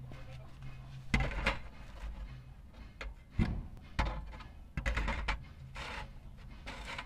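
Thin brass sheet being handled on a wooden workbench: a few short knocks and rustles as the sheet flexes and is set down and pressed flat against the wood.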